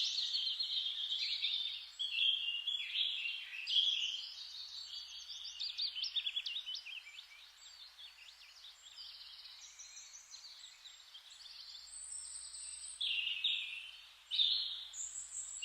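Birds chirping and singing in quick overlapping phrases, busiest in the first half and again near the end, quieter in between.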